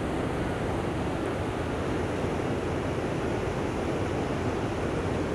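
Steady rush of the Reuss river's water pouring over a low weir.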